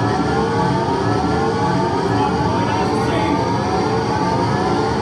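Live harsh noise / power electronics: a loud, steady wall of distorted electronic noise, with several pitched tones stacked above it that glide slowly upward, over and over, like sirens.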